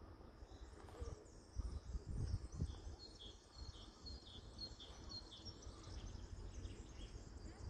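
Faint outdoor ambience with a songbird repeating short high notes that alternate between two pitches, about three a second, for a few seconds in the middle, over uneven low rumbling.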